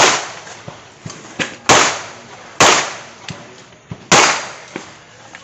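Handgun shots fired on a practical shooting competition stage: four loud shots at uneven intervals, each with a short echoing tail, with fainter sharp pops between them.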